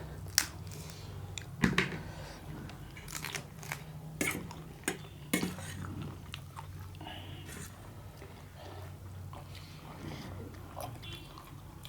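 Crab shell being cracked open and eaten: several sharp cracks and crunches close together in the first half, then quieter chewing and picking at the shell.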